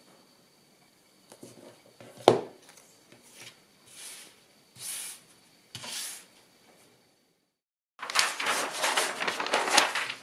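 Paperboard pieces set down and slid across a plastic cutting mat, with one sharp tap about two seconds in and a few short scraping swishes after it. After a brief silence, a large sheet of kraft paper rustles and crackles as it is handled.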